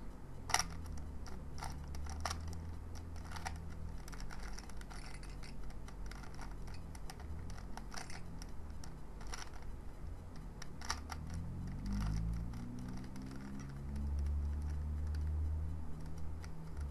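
Scattered plastic clicks of a Rubik's cube being handled and turned, over a low steady hum that grows louder near the end.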